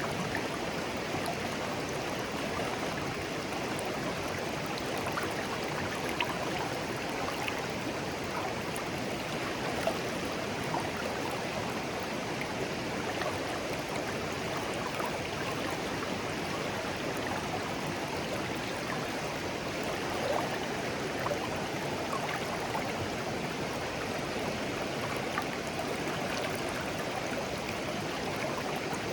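A clear, shallow stream flowing steadily, with small gurgles and splashes flickering through the steady rush of water.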